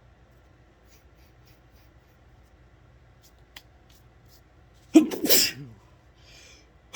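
A person sneezes once, about five seconds in: a sudden loud burst that trails off over about a second. Another sneeze starts right at the end.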